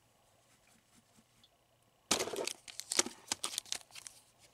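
Packaging being opened by hand: crinkling and tearing in quick, irregular strokes, starting about two seconds in after a quiet start.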